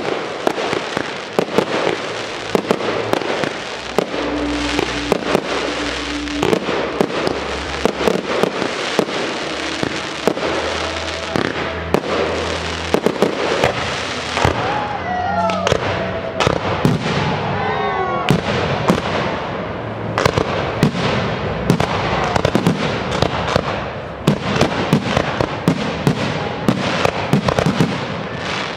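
Fireworks display: a continuous barrage of aerial shell bursts, many sharp bangs in quick succession over dense crackling.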